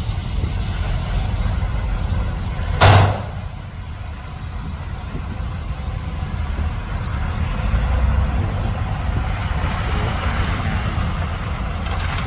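Heavy diesel truck engine running steadily with a low rumble, and a brief loud burst of noise about three seconds in.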